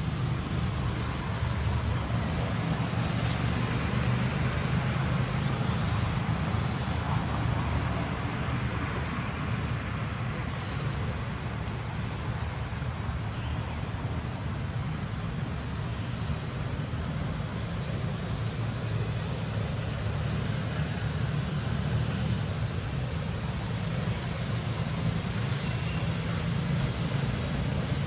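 Steady outdoor background noise: a low rumble like distant road traffic, under a constant high-pitched drone.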